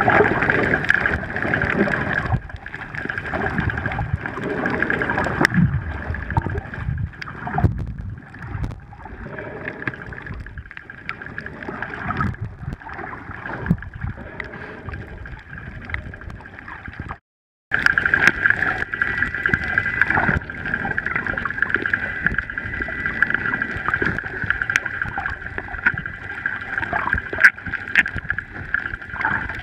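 Underwater sea ambience heard through a snorkeller's camera: a muffled, uneven rushing and gurgling of water with scattered sharp clicks and a steady faint high tone. The sound cuts out completely for a moment just past halfway.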